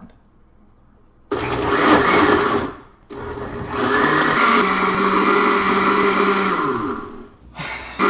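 Countertop blender running in two goes, blending a thick liquid mixture: a short run of about a second and a half starting a second in, a brief stop, then a longer run of about four seconds that winds down near the end.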